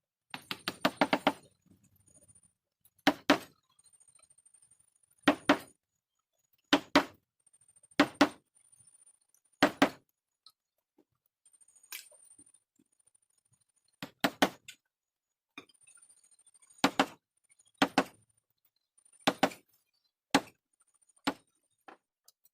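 Mallet striking a wood-carving chisel into hardwood: a quick run of taps about a second in, then single or paired knocks every second or two, with a pause of a few seconds midway.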